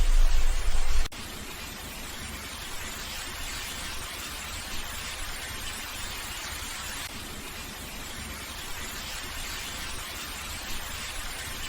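A steady, even hiss with no distinct events. A loud low rumble underneath cuts off suddenly about a second in.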